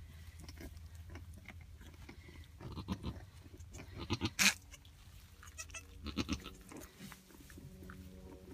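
Straw rustling and scuffing as newborn goat kids are handled in a straw bed, with a few sharp knocks, the loudest about four and a half seconds in. From about then on a goat makes a low, steady call.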